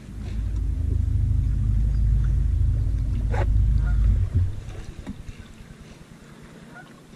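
Bow-mounted Minn Kota electric trolling motor running, a steady low hum that starts suddenly and dies away after about four seconds.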